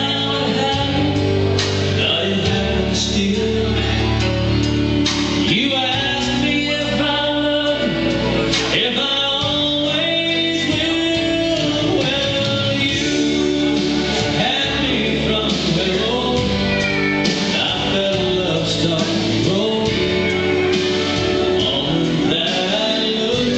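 A recorded song, a man singing over guitar accompaniment, played through a PA loudspeaker in a hall.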